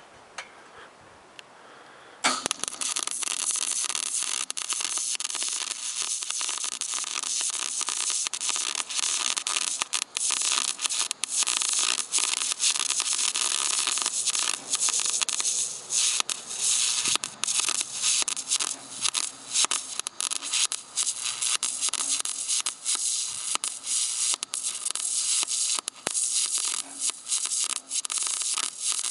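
Wire-feed welding arc crackling steadily as a bead is laid around the joint between a steel exhaust pipe and a muffler. It strikes about two seconds in and keeps going, with many brief breaks in the arc.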